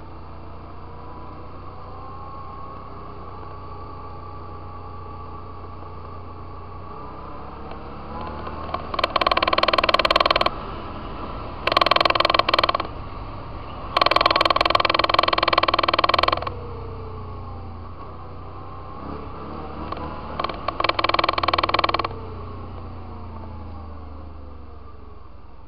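Off-road vehicle engine running along a gravel trail, its revs rising and falling. Four loud stretches of hard revving come in the middle, the longest about two seconds, loud enough to distort.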